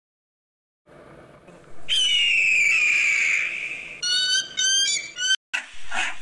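Eagle calling: one long, high scream that falls slightly in pitch, then a quick run of short, sharp calls, which stops abruptly about five seconds in.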